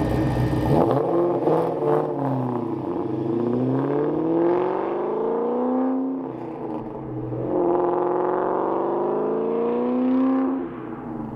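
A 2003 Ford Mustang SVT Cobra's Whipple-supercharged 4.6-litre V8 driving past and pulling hard away. Its pitch falls as it goes by, then climbs with the revs, dips about six seconds in as at a gear change, climbs again and cuts off sharply near the end as the throttle is lifted.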